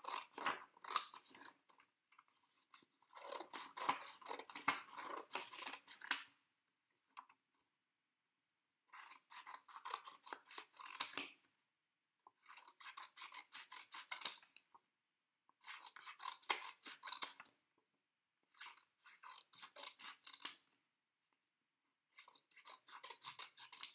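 Scissors cutting paper: about seven short runs of quick snips with brief pauses between them, each run ending on a sharper snip.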